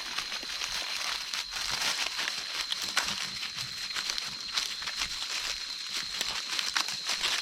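Footsteps crunching and crackling through dry leaves and undergrowth, in irregular steps, over a steady high-pitched background tone.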